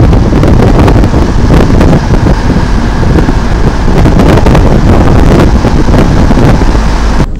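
Wind buffeting the microphone: a loud, uneven rumble with gusts, cutting off suddenly near the end.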